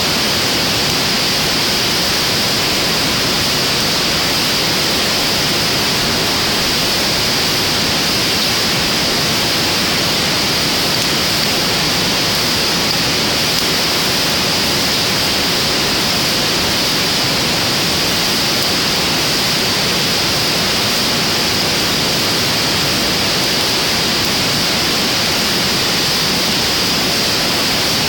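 A driftwood fire burning with a steady, even hiss and no distinct pops or crackles.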